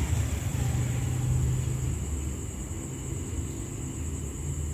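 Low, steady rumble of a distant Hitachi diesel-electric locomotive approaching the station, a little louder in the first two seconds, with a thin steady high-pitched whine over it.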